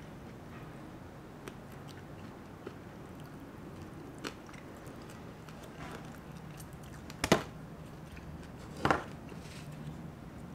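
A person chewing and biting into crunchy, crispy-skinned fried chicken wings, with small clicks and two loud crunches about a second and a half apart past the middle.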